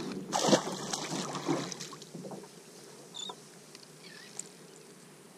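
A splash about half a second in as a small kingfish is released over the side of a kayak, followed by faint water sounds around the hull.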